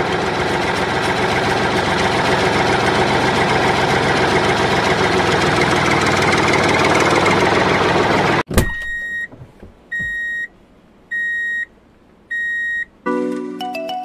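An engine runs steadily, then cuts off abruptly about eight and a half seconds in. Four short, evenly spaced high beeps follow, and music begins near the end.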